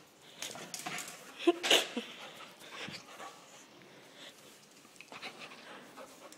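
A playful dog making short noises and scuffling close to the phone. The loudest are two quick bursts about a second and a half in, one with a brief pitched note.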